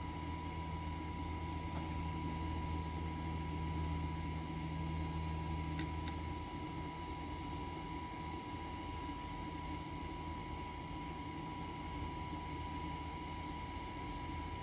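A train standing at a platform, running with a steady low hum and hiss. About six seconds in there are two sharp clicks, after which the low part of the hum drops away, leaving the hiss and a thin, steady high tone.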